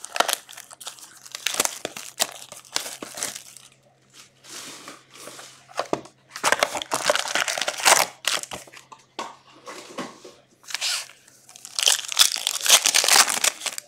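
Cellophane shrink wrap crinkling and tearing as it is stripped off a sealed Upper Deck SP Authentic hockey card box, then foil card packs crinkling as they are handled and torn open, in irregular spurts with brief pauses.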